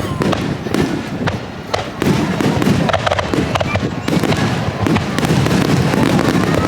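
Fireworks shells bursting close overhead in quick succession: a continuous barrage of booms mixed with sharp cracks and crackling, easing briefly about one and a half seconds in.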